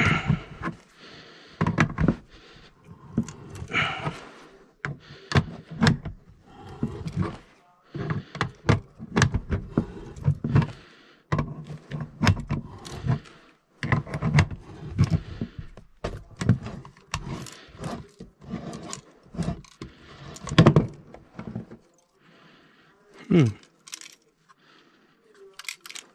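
Metal clinks and knocks of a wrench turning an old modulating furnace gas valve loose on its gas pipe and handling the removed valve, with heavy breathing and grunts of effort.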